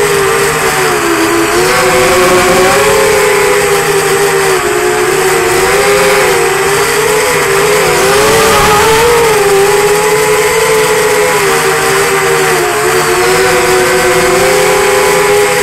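QAV210 racing quadcopter's brushless motors and propellers whining, heard up close from the camera on the frame. Their pitch wavers up and down continuously as the throttle changes through the flight.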